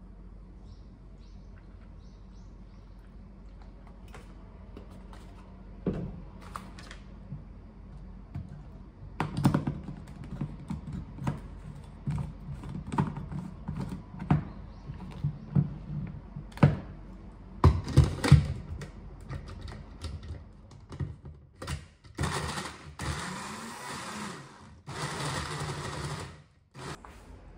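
Plastic cup and lid of a personal blender knocking and clicking as they are handled, screwed together and set on the base. Near the end the blender motor runs in two short bursts of about two seconds each, blending a milk-and-greens shake, and each burst cuts off sharply.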